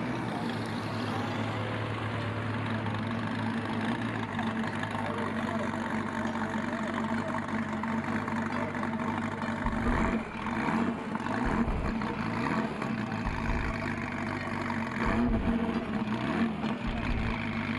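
Car engine running at a steady idle, with uneven low surges from about ten seconds in.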